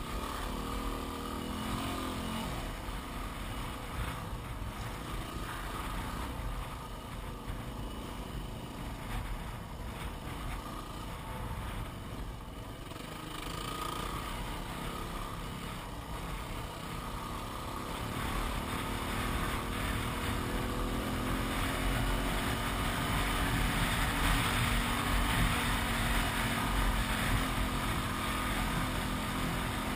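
Yamaha WR250R's 250 cc single-cylinder four-stroke engine running steadily under way, getting somewhat louder in the last third.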